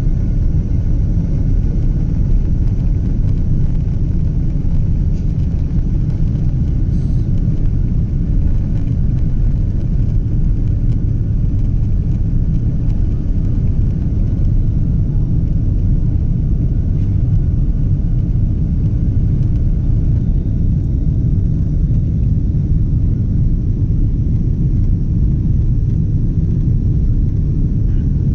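Boeing 777 in flight heard from inside the passenger cabin: a steady, unbroken low rumble of engine and airflow noise with a faint steady whine above it.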